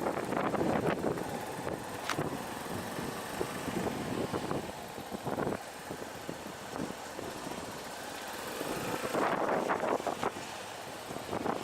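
Vehicle running noise mixed with wind on the microphone, rising and falling unevenly, louder again near the end.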